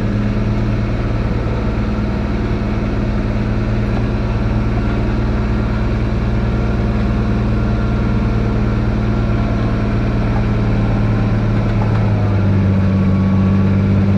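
Kubota diesel engine running steadily under load while plowing snow, growing a little louder near the end.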